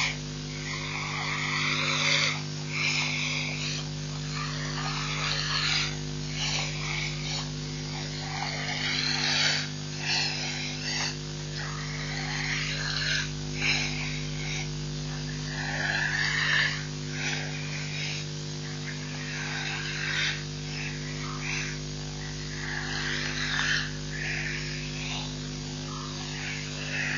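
Irregular short animal sounds every second or two over a steady electrical hum.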